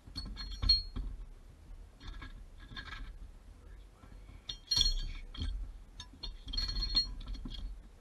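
Metal tools and hardware clinking and rattling in four short bursts, with a bright ringing chink. The sound comes from hand work on the seatbelt mounting hardware.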